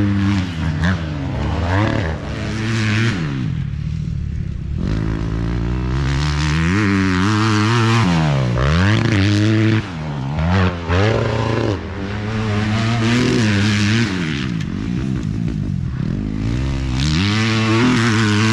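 Racing dirt bike engines revving hard. The engine pitch climbs and drops again and again as the riders accelerate and back off.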